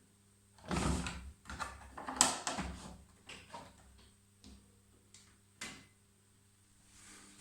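Miele front-loading washing machine's porthole door and latch being handled after the programme has ended: a run of clicks, knocks and clatter, loudest about two seconds in, then a few scattered clicks, over a faint steady hum.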